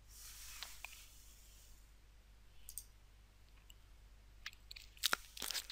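Quiet room tone with a few faint clicks. A soft high hiss fills the first two seconds, and two sharper clicks come about half a second apart near the end.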